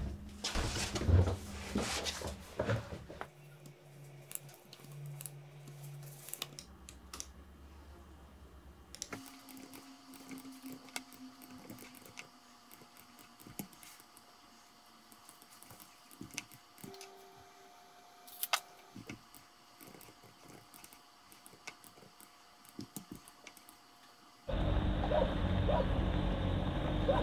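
Scattered clicks and taps of a computer keyboard and mouse over a faint room hum. About three seconds from the end it cuts suddenly to a much louder, steady outdoor rushing noise.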